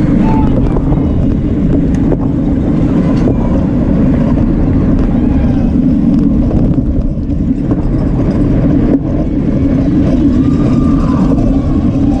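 Wind rushing over a racing bicycle's action-camera microphone at race speed: a loud, steady low rumble.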